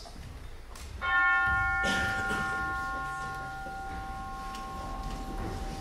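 A bell struck once about a second in, its tones ringing on and slowly dying away: a bell tolling midnight.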